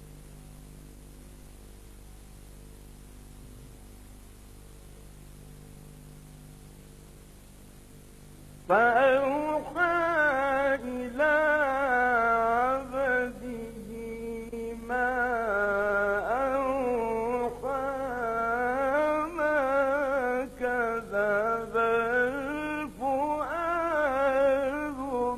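A low steady hum, then about nine seconds in a man's voice begins chanting Quran recitation in the melodic tajweed style, long phrases sliding and wavering up and down in pitch with short breaks between them.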